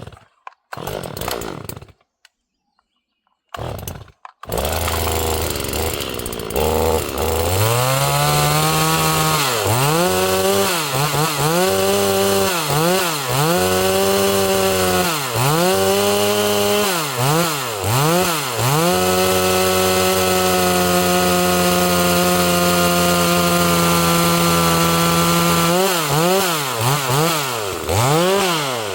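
Holzfforma G260 chainsaw, a Stihl MS 260 clone with a decompression valve, being pull-started: a few short tugs on the starter cord, then it catches about four seconds in and idles. It is then revved up and down repeatedly, held at a high steady pitch for several seconds, and revved again near the end.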